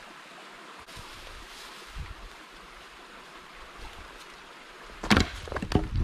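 Footsteps crunching and crackling through dry fallen leaves, a quick run of steps starting about five seconds in, over a steady rushing background.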